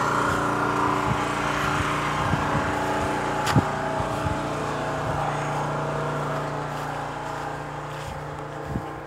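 An engine running steadily at a constant speed, growing gradually fainter and dying away near the end, with a single sharp click about three and a half seconds in.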